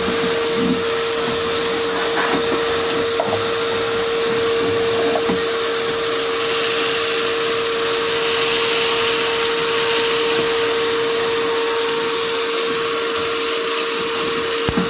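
Shop vac running steadily, a rushing of air over a constant motor whine, as its hose nozzle sucks German cockroaches and debris off a kitchen cabinet shelf. A few light knocks come in the first few seconds.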